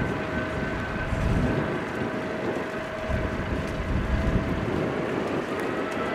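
Airbus A350's Rolls-Royce Trent XWB jet engines at low taxi thrust: a steady jet whine over a low rumble, with a second whine tone slowly rising near the end. Wind buffets the microphone.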